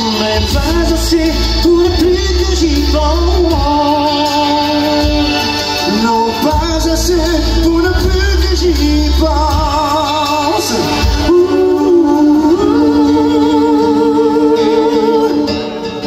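A live band playing with a man singing, holding long wavering notes with vibrato, especially in the second half.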